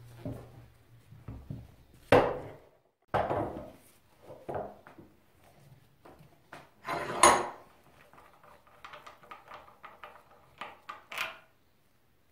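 Aluminium motorcycle rear-shock parts handled and set down on a wooden workbench: several knocks and clunks, the loudest about seven seconds in with a bright metallic ring, then a run of small light clicks near the end.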